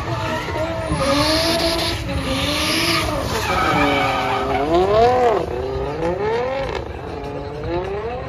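Drift car's engine revving up and down in repeated waves as the throttle is worked through a slide, with the rear tyres skidding and hissing as they spin and smoke. The tyre hiss is strongest about one to three seconds in, and the highest rev comes about five seconds in.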